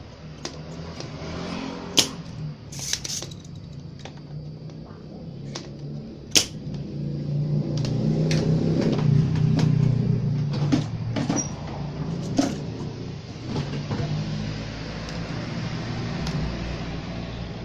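Spring-loaded desoldering pump firing several times, each a sharp snap a few seconds apart, as melted solder is sucked from a volume potentiometer's pins. A steady low hum runs underneath and swells for a few seconds in the middle.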